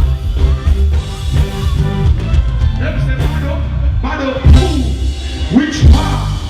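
Live reggae-dancehall band music with a heavy bass line and drum kit. A singer's voice slides in over it from about four seconds in.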